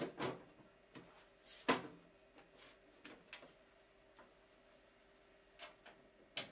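Side panel of an HP PC tower case being slid shut and latched: a series of clicks and knocks, the loudest a little under two seconds in and a sharp click just before the end.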